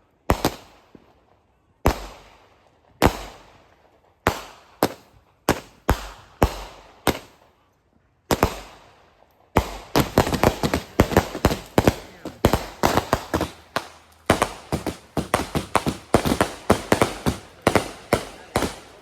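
Consumer fireworks going off: sharp bangs about one a second, then from about halfway through a rapid crackling barrage of many bangs a second.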